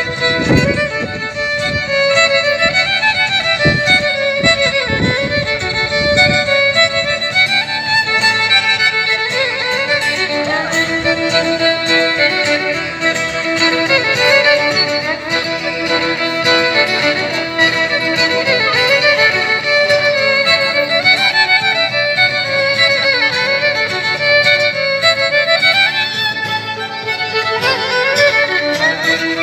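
A violin playing a continuous, flowing melody with sustained and sliding notes.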